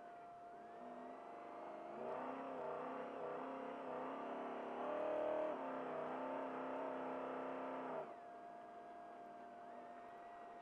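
Trophy truck's engine running under throttle, heard from inside the cab, pulling harder and louder from about two seconds in and dropping back suddenly about eight seconds in. A steady high whine runs underneath throughout.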